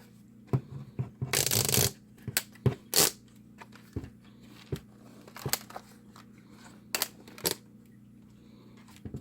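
Hands handling a plastic worklight and its packaging: a short rustle about a second and a half in, then a series of separate sharp clicks and taps.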